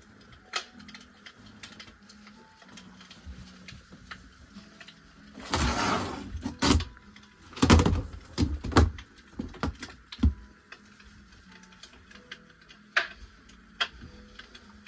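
Handling noise on a glass-topped counter: a short rustle, then a sharp click and a quick run of knocks and taps, with one more tap near the end, over a low steady hum.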